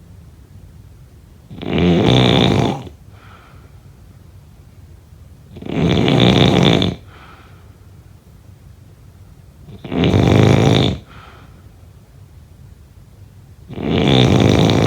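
Snoring in a slow, regular rhythm: four loud snores about four seconds apart, each lasting a little over a second.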